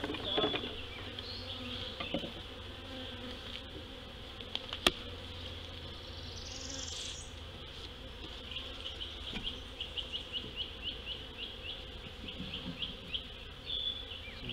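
Honey bees buzzing around an open hive as a new colony is installed, a steady hum. One sharp click about five seconds in, and a quick run of short high chirps in the second half.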